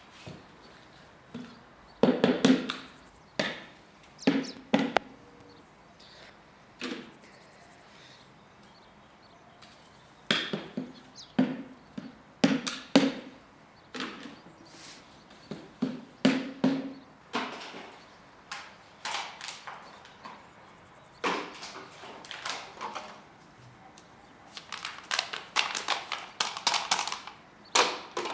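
A series of irregular chopping knocks: sharp strikes, each with a short hollow ring, spaced a second or more apart, then quickening into a rapid run of strikes near the end.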